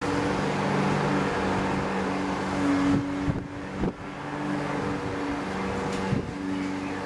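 A steady mechanical hum from a running motor or engine, made of several even tones that swell and fade slightly over a background rush. A few short knocks come about three and four seconds in and again near six seconds.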